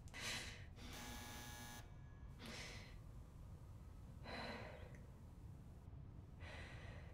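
A woman breathing heavily and shakily in distress: four quiet gasping breaths about two seconds apart, with one drawn-out breath about a second in carrying a buzzing tone.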